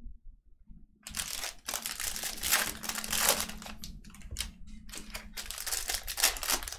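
Crinkling and rustling of trading-card pack wrappers and plastic sleeves being handled, in dense irregular crackles that start about a second in after a brief quiet.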